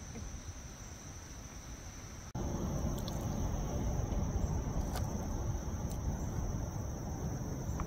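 Insects droning in one steady high note over a low rushing background noise, which jumps abruptly louder about two seconds in; a few faint ticks.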